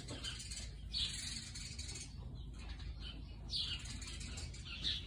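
Birds chirping: a few short, sharp chirps over a faint steady rustle.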